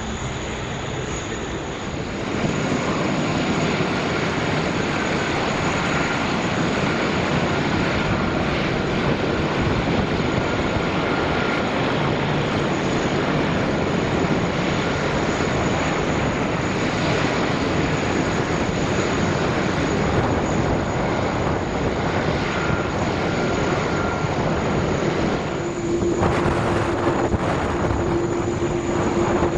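Large jet airliner landing close by, its engine noise swelling about two seconds in and then holding steady. A steady low hum joins near the end.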